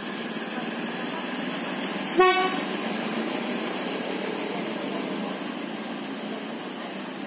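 Prameks diesel multiple unit passing close by, a steady rumble of wheels and running gear. About two seconds in, one short, loud horn toot.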